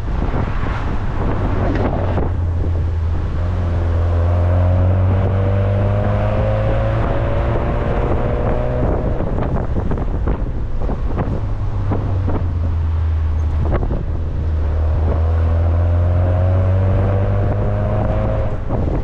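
Car engine pulling hard twice on a winding road, its pitch climbing slowly each time and then dropping away suddenly as the driver shifts or lifts. Heavy wind and road noise run throughout.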